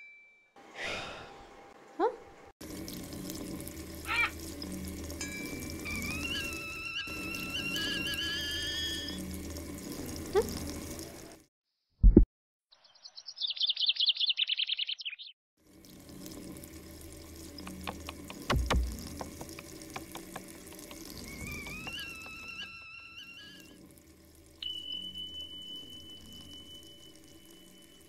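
Kitchen sounds: water running from a tap into a sink, with rising whistle-like tones over it. About halfway through comes a sharp knock, then a short burst of high bird chirps. A thin steady tone holds near the end.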